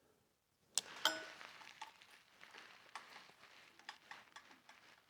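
Hand wrench clinking on the metal of a motorcycle starter solenoid, with one sharp ringing clink about a second in, then scattered light clicks and ticks as the small screws are worked loose.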